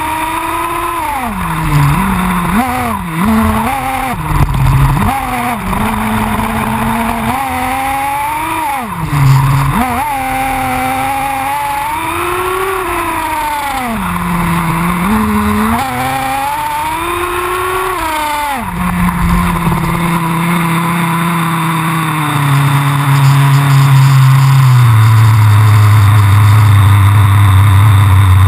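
XTM X-Terminator2 nitro RC buggy's two-stroke glow engine, heard from a camera mounted right behind it, revving up and down again and again while driven. About two-thirds of the way through it drops to a steady idle, which settles lower in two steps and grows louder.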